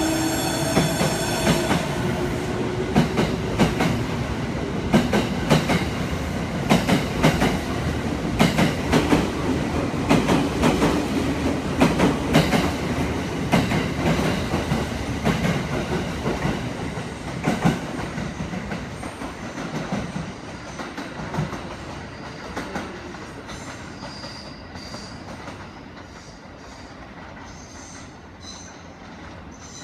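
JR E217-series electric train pulling out and accelerating past the platform. A rising motor tone is heard at first, then the wheels clack over rail joints. The sound fades steadily after about 18 seconds as the train leaves.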